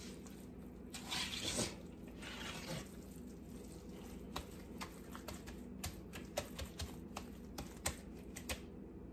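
Hands in rubber gloves squishing and kneading a wet cornbread dressing mixture in a large metal bowl: soft squelches early on, then scattered small clicks and taps as the hands work the mixture and touch the bowl.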